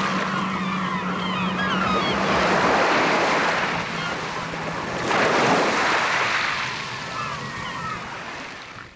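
Seaside sound effect: surf surging in two big swells with seagulls calling over it, and a low steady tone under the first couple of seconds. The surf dies down near the end and stops.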